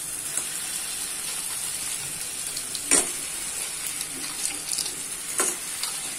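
Tomato-onion masala sizzling in oil in a kadai as raw crab pieces are tipped in from a bowl. A steady frying hiss, with two sharp knocks about three seconds in and five and a half seconds in.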